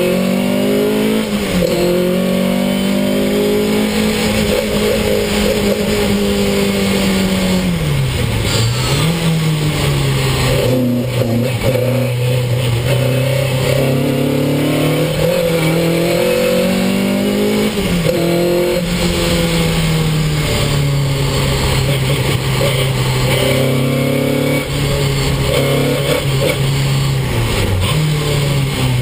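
Ford Anglia special saloon race car's engine heard from inside the cabin at racing speed. Its note climbs and holds, then falls back sharply several times at gear changes and braking points, most deeply about eight seconds in.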